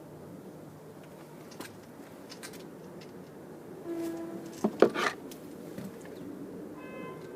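Hand work with tools and small metal parts during wiring: scattered sharp clicks and clanks, the loudest cluster about five seconds in, with a brief pitched tone just before it and another short one near the end.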